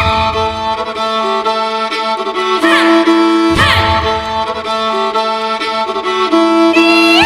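Instrumental music with held notes and several quick upward-sliding notes. A low pulsing beat drops out for about a second and a half midway, then returns.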